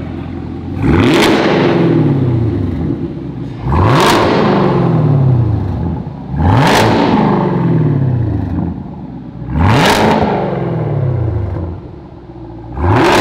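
Chevrolet Camaro ZL1's supercharged 6.2-litre V8 through a Borla exhaust, idling and then revved five times, about every three seconds, the last near the end. Each rev rises quickly and falls back to idle.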